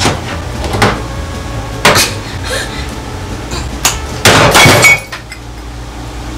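Hand-held can opener being worked on a metal tin of luncheon meat: a few separate sharp metal clicks and clanks as the blade is levered into the lid, then a louder, longer clatter near the end.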